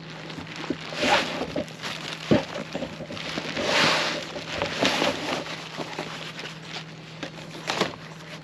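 Plastic wrapping crinkling and fabric rustling as a padded dog seat is pulled out of its carrying case by hand, with a few short handling clicks; the longest rustle comes about four seconds in.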